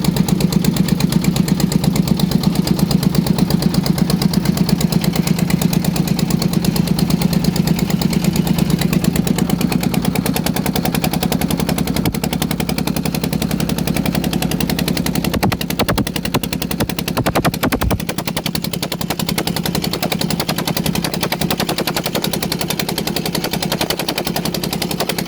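A boat engine running steadily with a rapid, even chugging. A few louder knocks come about two-thirds of the way through.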